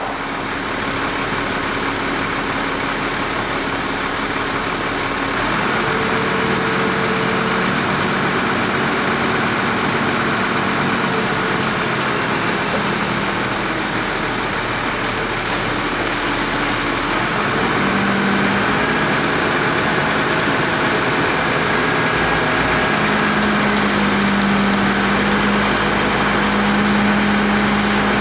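Truck-mounted boom crane's engine running steadily, its note growing stronger in the last third as the crane starts lifting a truss.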